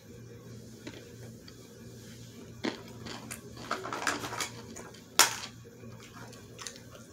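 Chewing a sour pickle: scattered crunches and mouth clicks, a short cluster of them around the middle, and one sharp click, the loudest sound, about five seconds in.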